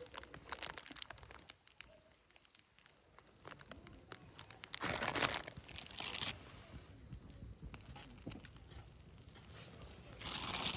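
Plastic packaging crinkling and rustling as it is handled, with scattered small clicks and a louder rustle about five seconds in and again near the end.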